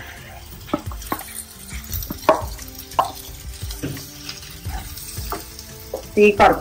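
Wooden spatula scraping mashed potato out of a steel bowl into a pan, with irregular scrapes and knocks of wood on metal, loudest near the end.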